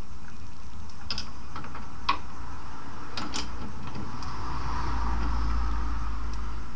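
A few sharp metallic clicks and taps from the wood being clamped into the wood lathe's chuck jaws, over a steady background noise.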